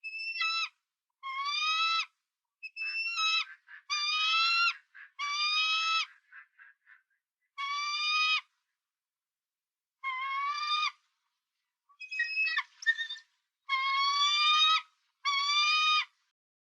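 A series of about ten high-pitched animal calls, each half a second to a second long and rising slightly in pitch, with short silent gaps between them.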